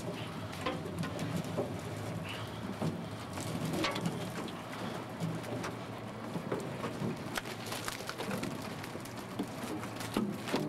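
Herring being shaken and picked out of a gillnet into an aluminum skiff: wet fish slapping and pattering and net mesh rustling, a run of irregular small knocks over a low steady hum.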